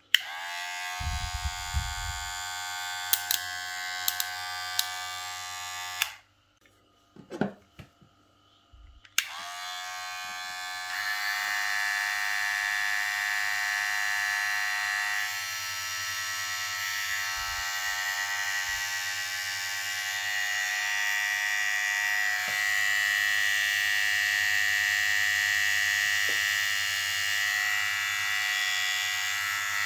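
Ufree cordless hair clipper motor spinning up with a rising whine and running steadily, with a few clicks; it switches off about six seconds in. It starts up again about nine seconds in, and a second, higher-pitched motor, the matching trimmer, joins about two seconds later so both run together.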